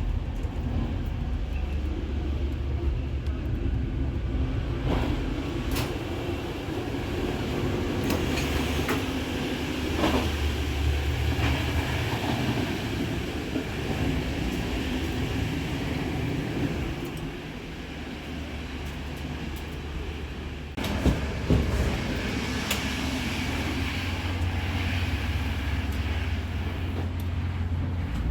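Sleeper train rolling along the track: a steady low rumble of wheels and carriage, with a few sharp knocks and clicks. It eases off for a few seconds in the latter half, then picks up again.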